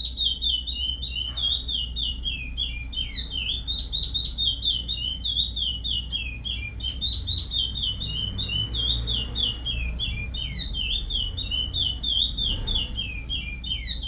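Curió (chestnut-bellied seed-finch) singing the Paracambi song: a rapid, unbroken string of short whistled notes.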